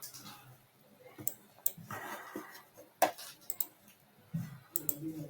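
Faint room noise with a few scattered sharp clicks and some low murmuring near the end.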